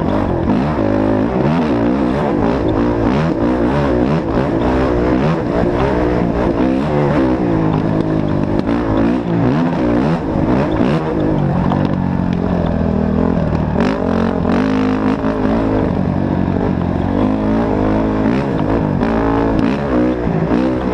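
Off-road race vehicle engines revving, their pitch climbing and falling again and again about every second, with more than one engine heard at once.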